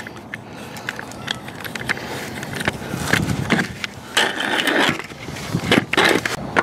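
Scattered clicks, knocks and scraping, with short bursts of rustling about four and six seconds in: handling noise from a handheld camera being moved around under a car.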